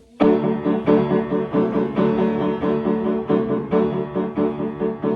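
A keyboard starts playing a song intro about a quarter second in, striking repeated chords roughly twice a second.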